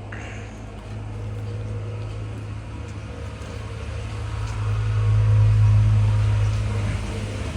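A machine's motor or engine running with a steady low hum, growing louder to a peak about five seconds in and then easing off slightly.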